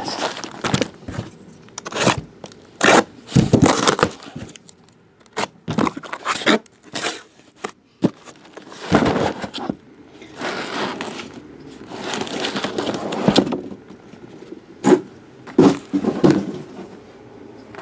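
Shrink-wrapped trading card hobby boxes and their cardboard shipping case being handled: cardboard scraping and rustling, broken by a series of sharp knocks as boxes are moved and set down.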